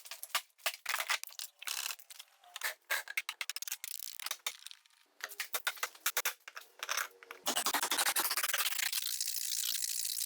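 Wood being worked with hand tools: a quick run of sharp clicks and scrapes, then from about seven and a half seconds a steady rasping noise.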